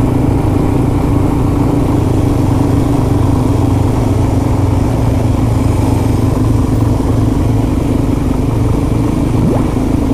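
Motorcycle engine running steadily at an even cruising pace, with wind and road noise.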